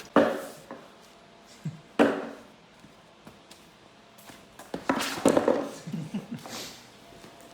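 A few sharp thuds: one right at the start, one about two seconds in, then a quicker cluster about five seconds in, with quiet stretches between.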